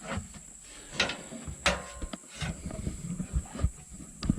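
Hand wrenches working the blade-tracking adjustment bolts on a portable bandsaw sawmill: scattered metallic clicks and knocks over handling noise.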